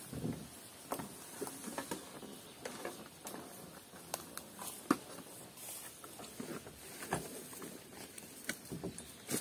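Rustling and footsteps through tall grass and reeds, with scattered light knocks and clatters of gear being handled in a small metal boat; one sharper knock comes about five seconds in.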